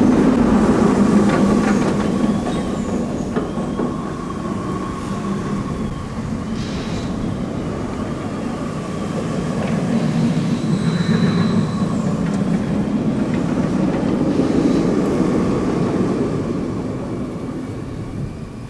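B&M wing coaster train rumbling along its steel track with a steady whine over the roar. It is loudest about a second in, swells again past ten seconds, then fades away near the end.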